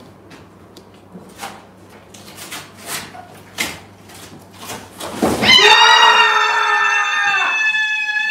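Packing tape ripped off a cardboard box in several short, sharp tugs. Then, about five seconds in, a woman gives a loud, high-pitched shriek held for about two seconds.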